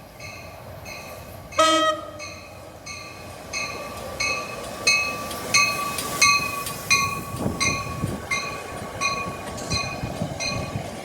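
Railroad crossing bell ringing steadily, about one and a half strikes a second, with a short train horn blast about a second and a half in. A train's rumble builds in under the bell from the middle onward as it approaches.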